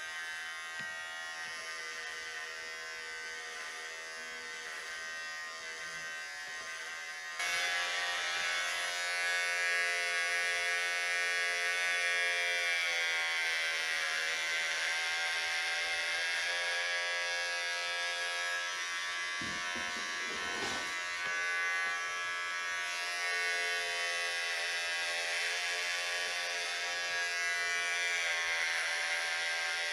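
Corded electric hair clippers buzzing steadily while shaving hair close to the scalp. About seven seconds in the buzz turns suddenly louder and a little different in tone, and its pitch sags slightly now and then.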